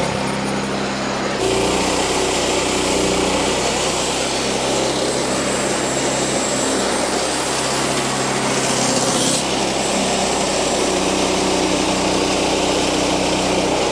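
Wood-Mizer LX portable band sawmill cutting a log, its gas engine running steadily under load while the band blade saws through the wood. It gets louder about a second and a half in and stays steady after that.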